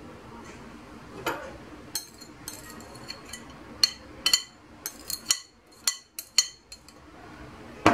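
A glass bowl clinking about a dozen times at irregular intervals, short sharp clinks with a high ring, as it is tipped and handled over a clay tagine to empty out the last of the spiced water.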